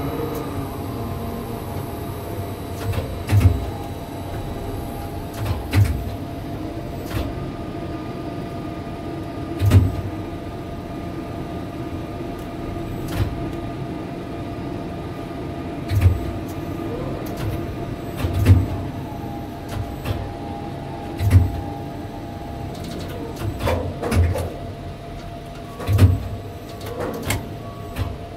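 Steady machinery hum inside a tower crane's cab, with a faint steady whine, broken by dull thuds and clicks about every two to three seconds.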